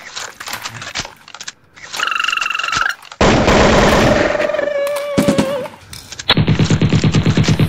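Battery-powered toy guns playing electronic machine-gun sound effects: a short buzzing tone about two seconds in, then two long bursts of rapid, evenly spaced firing, the second starting about six seconds in.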